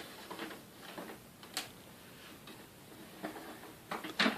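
Scattered light plastic clicks and taps from handling the dust bag and removable bag canister of a Panasonic MC-CG917 canister vacuum, several in a cluster near the end.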